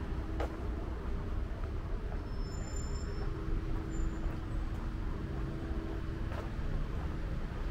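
City road traffic: cars running and passing on the street ahead, a steady low rumble with a constant hum. Two brief clicks, about half a second in and near the end.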